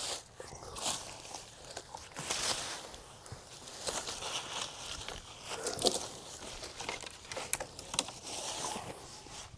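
Footsteps crunching and rustling through woodland undergrowth at an uneven pace, with a few sharper snaps in the second half.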